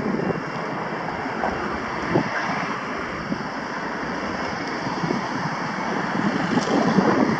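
Street noise with wind buffeting the microphone and cars driving past, growing a little louder near the end.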